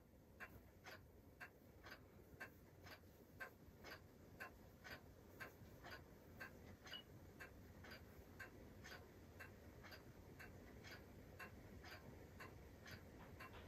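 Near silence with a faint, steady ticking, about two ticks a second.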